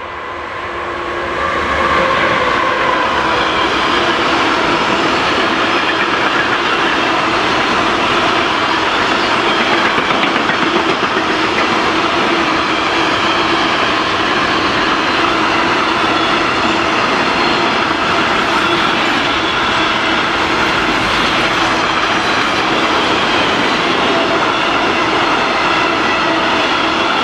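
Train running past close by: loud, steady rolling noise of wheels on rails that builds over the first two seconds and then holds.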